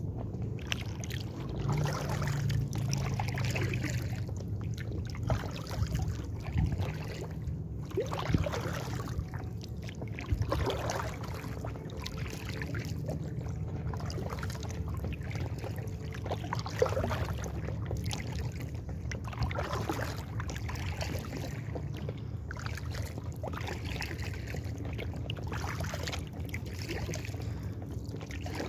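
Kayak paddle strokes in calm lake water: the blades dipping and pulling with splashes and drips, about one stroke every two to three seconds, over a steady low rumble.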